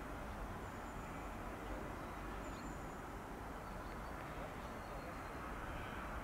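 Steady outdoor background noise with a few faint, short, high bird chirps.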